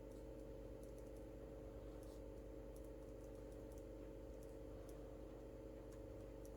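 Faint, scattered light clicks and taps over a steady low electrical hum.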